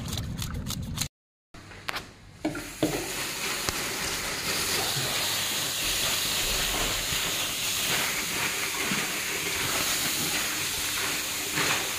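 A tap running steadily into a sink over whole fish as they are rinsed by hand, an even rush of water. It sets in about two seconds in, after a brief silent gap and a few knocks.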